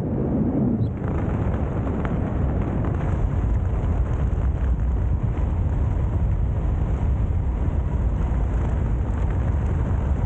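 Steady wind buffeting the microphone of a helmet-mounted camera on a skydiver flying under an open parachute canopy, heard as an even low rumble.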